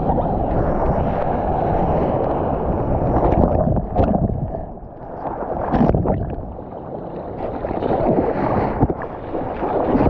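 Ocean whitewater rushing and splashing around the camera, with wind buffeting the microphone. About six seconds in a breaking wave swamps the camera, and the sound turns to churning, muffled water.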